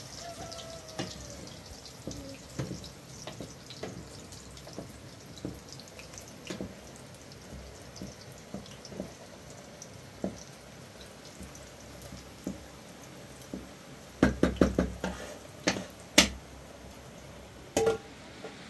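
Wooden spoon stirring and knocking against a metal cooking pot, with scattered light knocks over a steady hiss. There is a quick cluster of louder knocks about three-quarters of the way through, and two more single knocks near the end.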